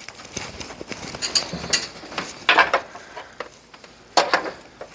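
Metal parts of a Brunswick A2 pinsetter's turret being handled, giving a handful of separate sharp metallic clinks and knocks.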